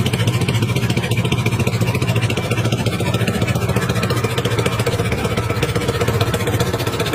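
Small fishing boat's engine running steadily with a fast, even chugging and a strong low hum.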